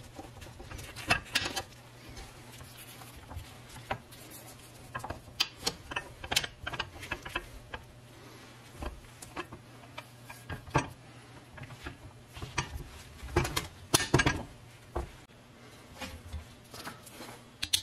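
Irregular light metallic clicks and taps of a steel pivot pin being worked into the joint of a painted cast-iron brick carrier, with a few louder knocks about three-quarters of the way through.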